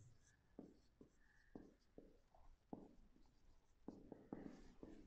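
Faint strokes of a marker pen writing on a whiteboard, about ten short scratches and squeaks in an uneven string.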